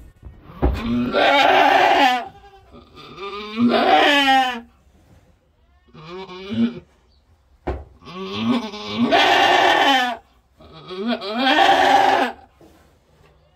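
Boer goat doe in labor bleating loudly as she pushes out a kid: about five long calls, each a second or two, one with a wavering pitch.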